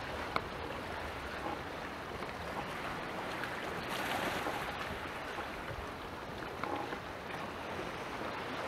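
Steady hiss of wind and lapping water by the sea, swelling briefly about four seconds in.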